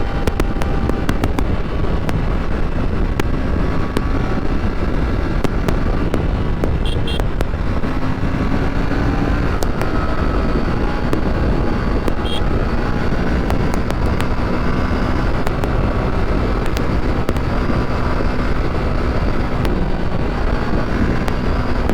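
Aprilia RS 457 parallel-twin engine running under way, with heavy wind rush on the microphone. Many short sharp cracks are scattered through it, and the engine note climbs slightly about eight seconds in.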